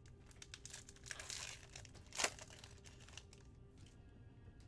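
Foil wrapper of a Panini Prizm Draft Picks football card pack being torn open by hand: crinkling of the foil, with one sharp rip a little after two seconds in.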